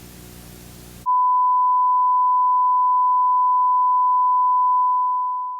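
Electronic alert tone of a mock Emergency Alert System broadcast: after about a second of faint low droning, a single steady pure tone starts abruptly and holds for about four and a half seconds, tapering off at the end.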